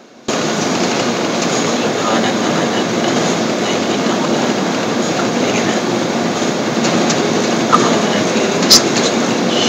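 A loud, steady rushing and rumbling noise that starts abruptly just after the beginning, with a man's voice partly buried under it.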